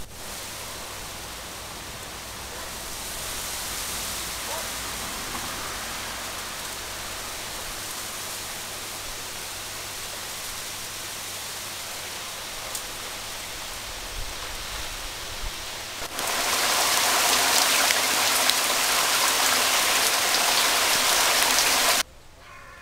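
Wind rustling through bamboo leaves, a steady hiss that grows louder about two-thirds of the way in and cuts off abruptly near the end.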